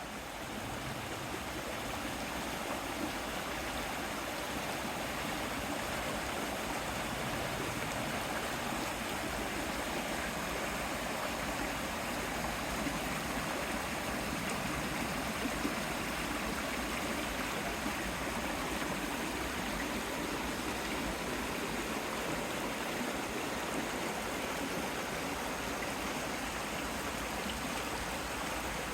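A mountain stream flowing and splashing steadily over rocks.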